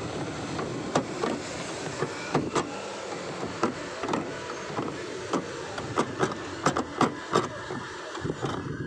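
A moving amusement ride heard from the seat: a steady rushing noise with irregular sharp clicks and knocks, about a dozen, coming thicker in the second half.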